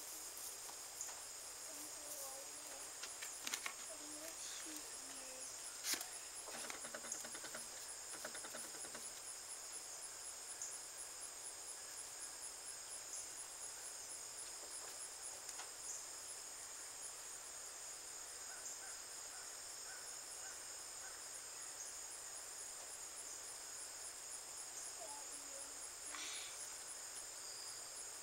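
Steady high-pitched chirring of crickets and other insects in a field, with a few sharp knocks and rustles as the cardboard target box and steel plate are handled, the loudest about six seconds in.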